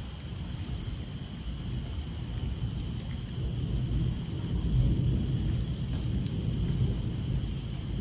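Rain falling with a low roll of thunder that builds about halfway through and rumbles on.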